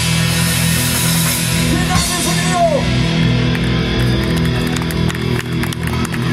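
Instrumental opening of a rock song played by a band with guitars, bass and drums. Sustained low notes run under a wash of noise that drops away after about two and a half seconds. A note slides in pitch near the middle, and quick light ticks follow in the second half.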